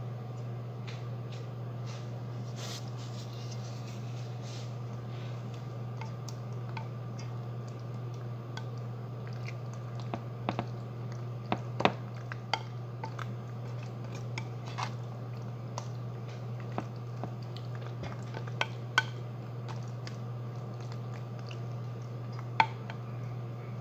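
A fork stirring pasta and béchamel sauce in a glass baking dish: wet squishing with scattered sharp clicks and taps of the utensil against the glass, louder and more frequent in the second half. A steady low hum runs underneath.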